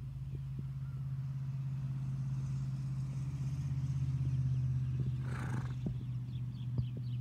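Horse cantering on grass, its hoofbeats faint soft knocks under a steady low motor hum, with a short breathy blow about five seconds in.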